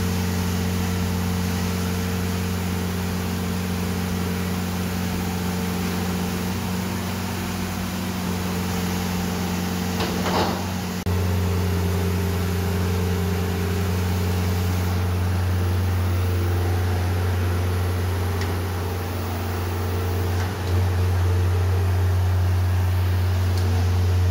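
Container truck's engine running steadily at idle, a constant low hum, with a brief louder noise about ten seconds in.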